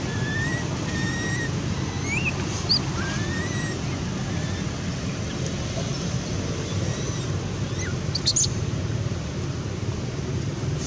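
Steady wind rumble on the microphone, with scattered faint, short chirps and rising whistles from small birds above it and a quick burst of clicks about eight seconds in.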